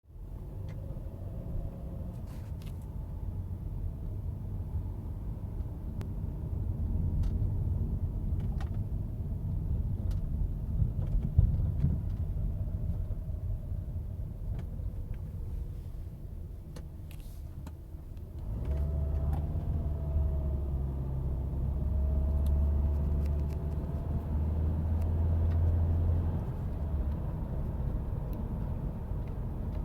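Subaru driving, with steady low road and engine rumble and a faint whine above it. A little past halfway the rumble dips briefly, then comes back stronger, and the whine turns clearer and wavers in pitch. The whine is an unexplained fault the owner wants diagnosed.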